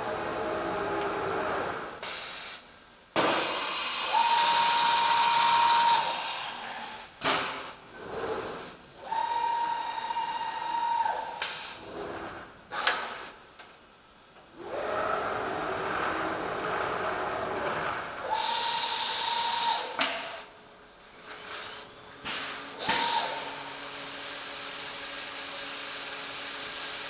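A CNC stone-cutting machine's spindle driving a diamond finger bit through hard stone: a steady grinding, cutting noise that comes and goes in passes with abrupt changes. Within several of the passes a steady high whine is held for a second or two.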